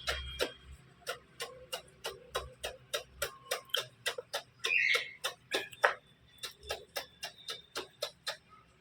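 A quick run of sharp clicks or ticks, about three to four a second, with a short high chirp about five seconds in.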